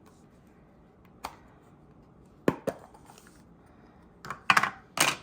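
Dishes or small containers being handled on a kitchen counter: a few scattered knocks and clicks, with a quick cluster of louder ones near the end.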